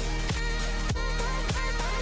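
Background music with a steady electronic beat, about one drum hit every 0.6 seconds over deep bass and held synth notes.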